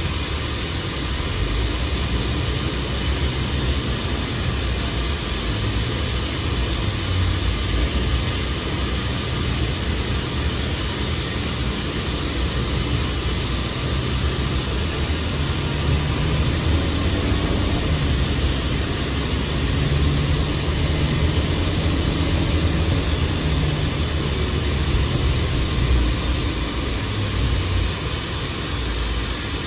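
Mercedes-Benz OC500LE CNG bus engine and ZF automatic drivetrain running under way, its low drone shifting in pitch and rising in the second half, over a steady high hiss.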